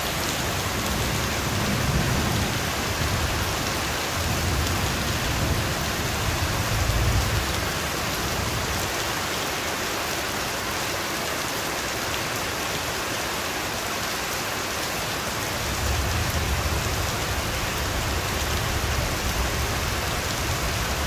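Heavy rain falling steadily in a dense, even hiss, with low rumbles of thunder swelling about two seconds in, again between about four and seven seconds, and once more from about sixteen seconds on.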